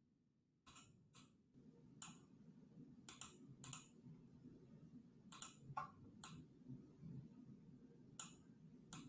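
Faint computer mouse clicks, about ten at irregular spacing with some in quick pairs, over a low steady hum.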